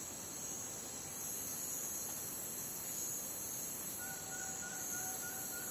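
Night rainforest ambience: a steady, high-pitched chorus of crickets and other insects, with a second, even higher insect layer coming in about a second in. A faint, rapidly pulsing call joins in the last couple of seconds.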